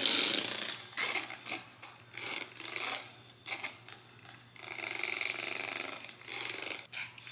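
Handheld battery milk frother running in spells as it whisks a protein shake in a cup, with short knocks and clicks of the wand against the cup between spells.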